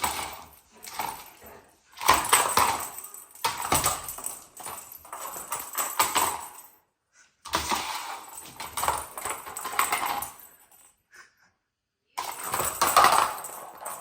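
Dogs playing with a rattling toy: irregular clattering and scrabbling with many quick knocks, in short stretches that cut off abruptly twice.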